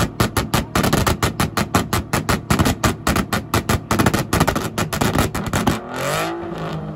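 Car engine held at its rev limiter, cutting in and out about eight times a second; about six seconds in the throttle is let off and the revs fall back to a steady idle.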